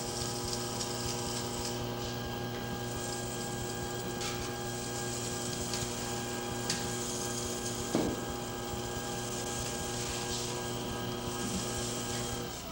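Electric potter's wheel motor giving a steady, even hum as the wheel turns while the neck of a bottle is thrown. The hum cuts off just before the end, and there is a single soft knock about eight seconds in.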